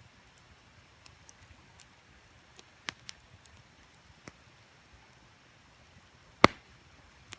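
Wood campfire crackling with scattered sharp pops, the loudest about six and a half seconds in, over a faint steady rush from the creek.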